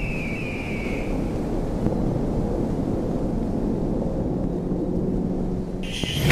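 A steady low rumble, with a high whistling tone that slides slightly down and fades out about a second in. Music cuts in right at the end.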